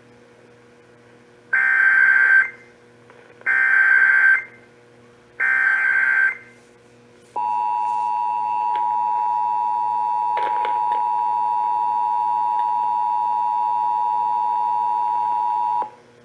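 Emergency Alert System activation: three short bursts of SAME header data tones about two seconds apart, then the EAS two-tone attention signal, a steady dual tone held for about eight and a half seconds before cutting off. The sequence starts the relay of a severe thunderstorm warning.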